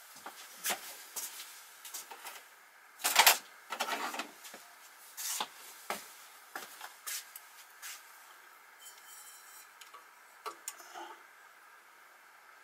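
Scattered clicks, knocks and short scrapes of metal tools being handled at a lathe, with the loudest knock and scrape about three seconds in and lighter clicks after it.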